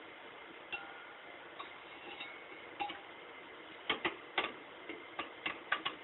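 Light metallic clicks and clinks of steel and friction plates from a 700R4 transmission clutch pack being handled and set down, some ringing briefly. A few scattered clicks at first, coming more often in the last two seconds.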